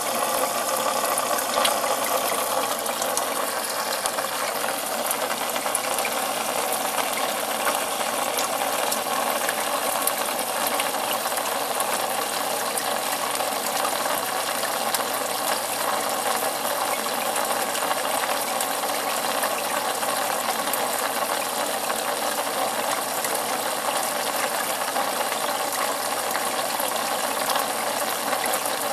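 Aquarium water bubbling steadily: a dense, even crackle of fine ticks and splashes that does not change.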